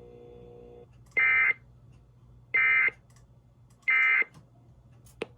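Emergency Alert System End-of-Message signal: three identical short, harsh digital data bursts about 1.4 seconds apart, the coded tones that close the alert and hand back to normal programming. A faint steady tone dies away just before the first burst, and a single click comes near the end.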